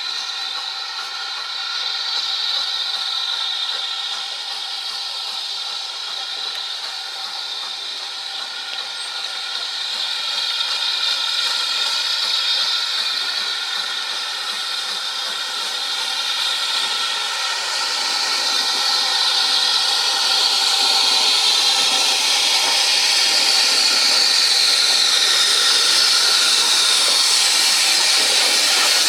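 Steam hissing steadily from the steam locomotive Large Prairie 5199, a GWR 2-6-2 tank engine, growing louder toward the end.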